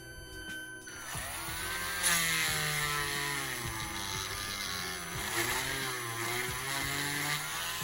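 Small power drill running at a slow, varying speed as its bit bores into the centre of a plastic action-figure ball peg. The motor whine dips in pitch about a second in, as the bit bites, then wavers up and down over a grinding hiss.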